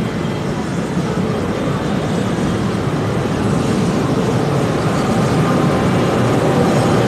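Electric commuter train pulling into the station and running along the platform, its steady rumble growing louder as it comes alongside.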